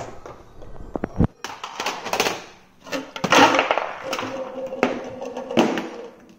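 A Rube Goldberg chain reaction of toys and household objects: small cardboard game boxes and cartridges knocking over in a few sharp clicks, then long stretches of rolling, rattling and clattering as the objects topple one into the next.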